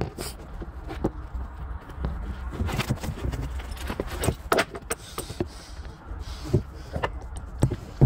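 Scattered sharp clicks and knocks, irregular and a few a second, over a steady low rumble.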